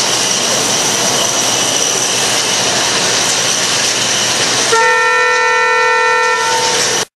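A steady rushing noise with a faint high whine, then about five seconds in a horn sounds for about two seconds, the arena's signal ending the robot-combat match.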